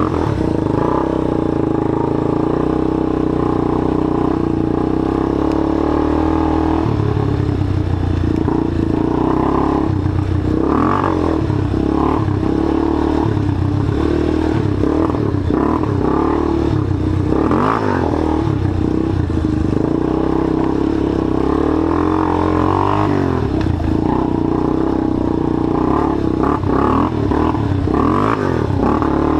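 Rebuilt ATV's engine running at a steady speed for the first several seconds, then revving up and down over and over as it is ridden, with occasional knocks.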